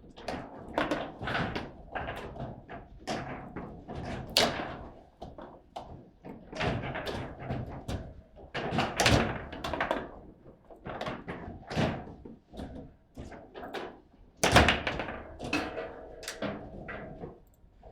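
Table football play: the ball cracking off the little players and the table's walls, and the rods knocking, in a quick irregular run of knocks with a few harder shots, the hardest well past halfway.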